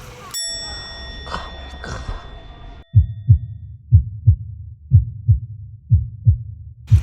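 A bell-like ding rings out and fades. After an abrupt cut, a heartbeat sound effect begins: paired low thumps, lub-dub, about once a second.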